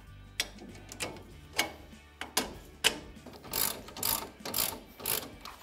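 Hand ratchet clicking as the lower shock-mount bolt is run in. There are a few separate clicks at first, then four longer ratcheting strokes about half a second apart.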